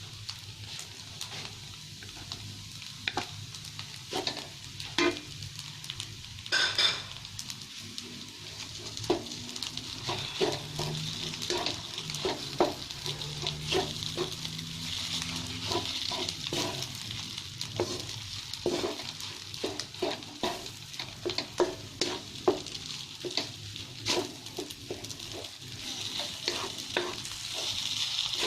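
Fried rice with egg sizzling in a hot pan with oil and butter, with frequent clicks and scrapes as a spatula stirs and knocks against the pan.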